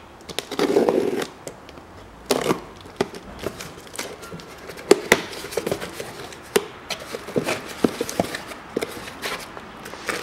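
Cardboard air-filter box being opened and handled: a scuffing rub of the flaps, then scattered sharp taps and clicks, with crinkling of the filter's plastic wrap near the end.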